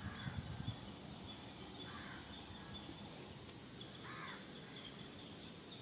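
Faint outdoor ambience with a distant crow cawing twice, once about two seconds in and again about four seconds in.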